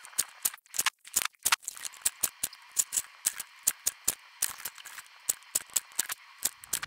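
Quick, sharp clicks and snips, about four a second, from a guillotine paper cutter as photo prints are trimmed to size.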